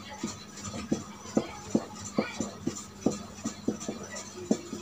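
Marker pen writing on chart paper: a run of short, irregular strokes, about three a second, over a steady low hum.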